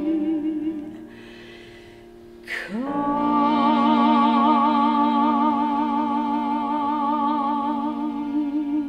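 A woman singing a long held note with vibrato, accompanied by cello and keyboard. She slides up into the note about two and a half seconds in, after a quieter moment.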